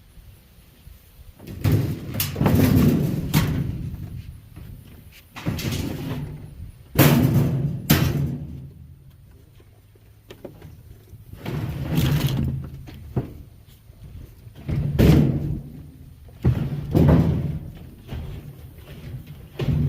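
Heavy, irregular bangs and thuds on a metal washing machine being broken down for scrap, about ten blows spaced one to several seconds apart, each ringing out low before fading.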